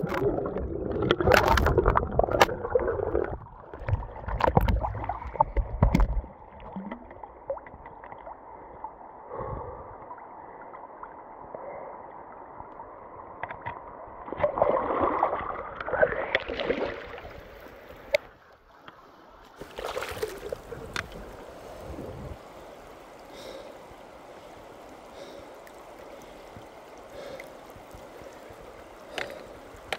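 A person falling into a shallow rocky river with the microphone going under: heavy splashing and churning water for the first few seconds, then muffled gurgling with the highs cut off, as if the microphone is underwater or covered. About two-thirds of the way in, the steady rush of the river comes through clearly, with a few light knocks.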